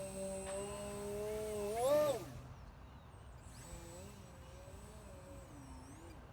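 RC airplane's electric motor and 6x4.5 propeller whining in flight. The pitch holds steady, swoops sharply up about two seconds in, then drops away to a fainter wavering hum as the throttle and distance change.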